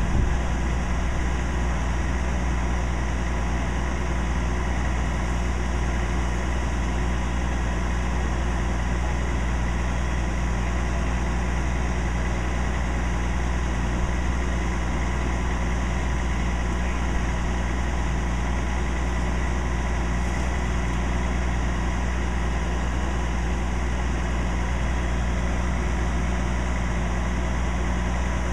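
Fire engine idling with a steady, unchanging low engine hum.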